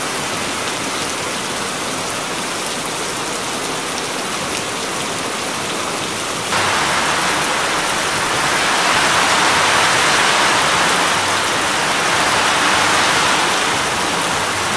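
Steady rain falling on bare ground. About six and a half seconds in it jumps to a louder downpour, with runoff streaming off a tree into a large glazed water jar.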